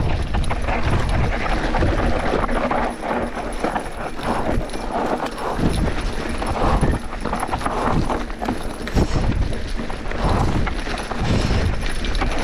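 Mountain bike descending a rutted dirt singletrack: tyres on dirt, with the bike rattling and knocking irregularly as it runs over the ruts.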